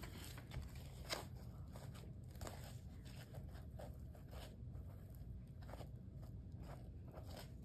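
Faint rustling and light clicks of fur and cardboard being handled and pressed together, with one slightly sharper tick about a second in.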